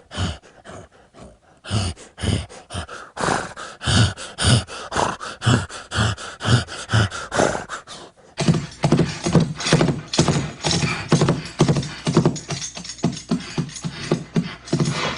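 Clip-clop of hoofbeats: evenly spaced strikes at about two a second, then after a short break about eight seconds in, a faster, denser run of hoof strikes.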